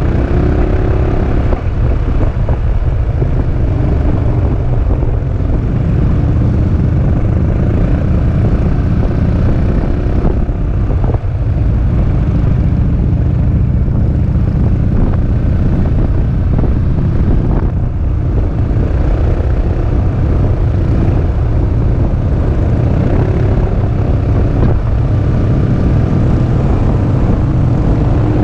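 Peugeot Metropolis three-wheeled scooter riding at road speed: heavy wind buffeting on the microphone over the engine's drone, the engine note rising briefly near the start and again near the end.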